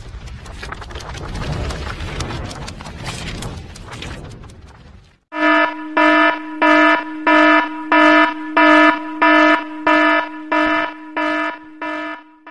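Electronic alarm-buzzer sound effect: a harsh pitched beep repeated evenly at just under two a second, starting suddenly about five seconds in. Before it, a noisy rumbling sound effect fades out.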